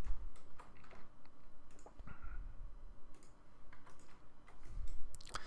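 Scattered computer clicks, mouse buttons and keys pressed at irregular intervals, over a faint low hum.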